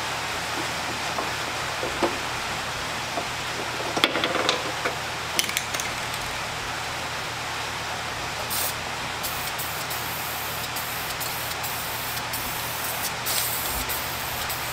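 Aerosol spray can of primer hissing as it is sprayed onto bare sheet metal. A few sharp clicks come in the first half, and in the second half the spray goes on and off in short bursts.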